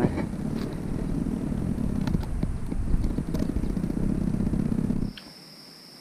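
Wind buffeting the microphone: a loud, uneven low rumble with scattered clicks. About five seconds in it cuts off, leaving a quiet background with a steady high insect trill and a few light clicks.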